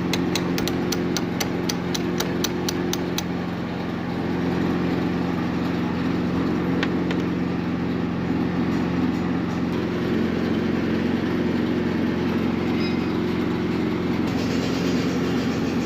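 Concrete pump machinery running with a steady mechanical hum. A sharp ticking, about three a second, stops about three seconds in.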